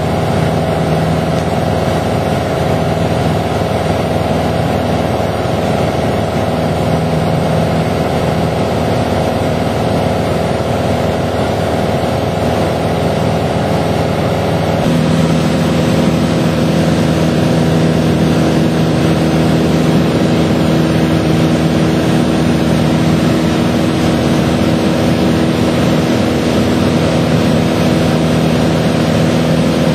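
Steady aircraft engine drone heard inside the cabin in cruise. The tones in the drone shift abruptly about halfway through.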